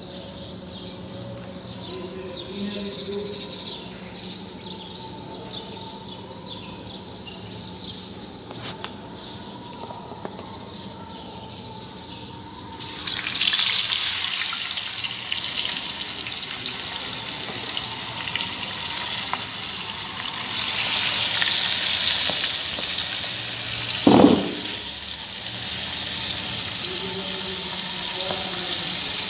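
Fish pieces dredged in flour frying in hot oil in a wok. The sizzle jumps to a loud, steady hiss about halfway through, as the fish goes into the oil. A single sharp knock comes near the end.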